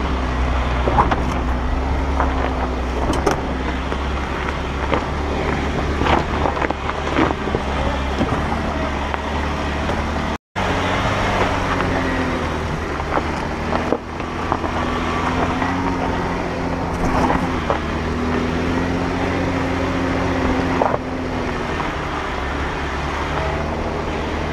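Jeep engine running at low revs, its pitch wavering, as the Jeep crawls over a rocky dirt trail, with scattered crunches and knocks of the tyres on gravel and rocks. The sound cuts out for a moment about ten seconds in.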